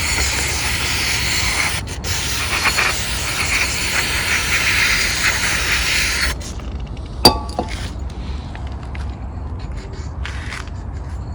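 Aerosol carburetor cleaner spraying into a lawn mower carburetor as a long hiss, broken briefly about two seconds in and stopping a little after six seconds. About a second later comes a single sharp, ringing clink.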